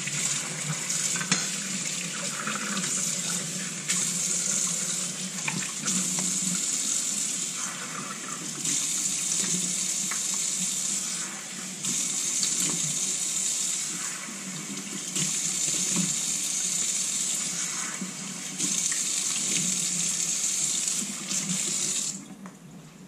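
Hot water running from a tap into a sink; the splashing swells and eases every few seconds and the tap shuts off near the end.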